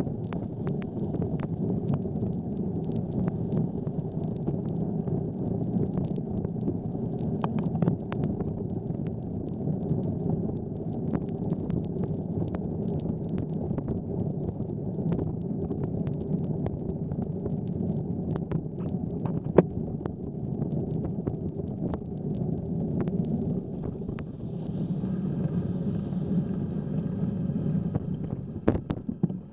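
Steady low rumble of a bicycle riding on wet pavement in the rain, tyre and wind noise on the bike camera's microphone, with many scattered sharp ticks. Near the end the rumble eases and a faint high-pitched tone joins in.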